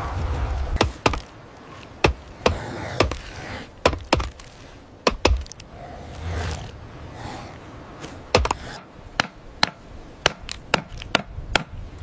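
Stone tools chopping and striking bone and carcass: a run of about eighteen sharp hits, unevenly spaced, one or two a second. A low rumble dies away in the first moment.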